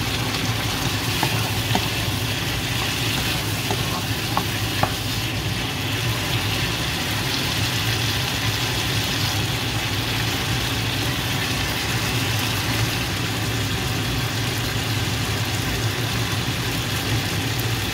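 Pork belly pieces with onions and tomatoes sizzling steadily in a frying pan, over a steady low hum. A few light clicks come in the first few seconds.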